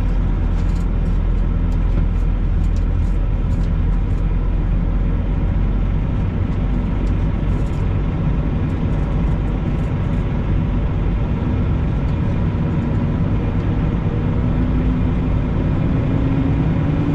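Semi-truck's diesel engine running as the truck rolls slowly, heard from inside the cab as a steady low rumble. Over the last few seconds the engine note climbs as the truck speeds up.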